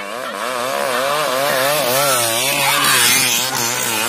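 Motorcycle engine running hard, its pitch wobbling up and down a few times a second as the throttle is worked, with a rising rush of noise as the bike approaches.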